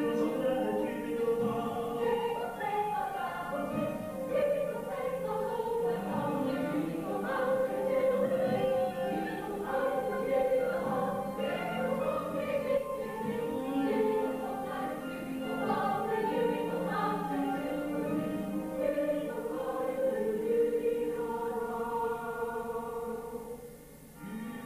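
Musical-theatre ensemble singing in chorus over an orchestral backing, with a brief dip in loudness near the end.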